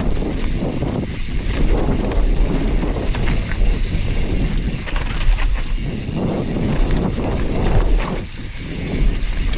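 YT Capra enduro mountain bike descending a dirt trail at speed: tyres rolling over packed dirt and dry leaves, with frequent knocks and rattles from the bike over bumps, and wind buffeting the action-camera microphone.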